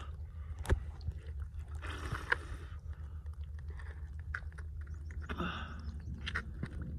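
Live crabs clicking and scraping their shells and legs against each other in a plastic bucket, with scattered sharp clicks and short scratchy crunches over a steady low rumble.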